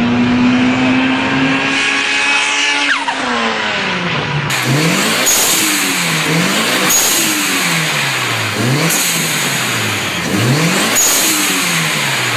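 A car's engine passing on a track, its note held steady and then dropping in pitch about three seconds in. Then a turbocharged engine fitted with an aftermarket blow-off valve is revved about four times, each rev rising and falling, with a high whistle near each peak.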